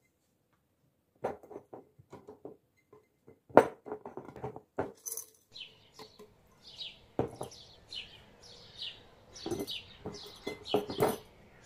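Small whole cucumbers knocking and clunking against glass jars as they are packed in by hand. From about halfway through, a bird chirps repeatedly with short high notes.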